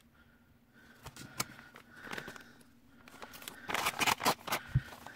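A metal knife blade slitting open a paper envelope. A few faint scrapes and clicks come first, then from about three seconds in a run of louder papery cutting strokes as the blade runs along the envelope's edge.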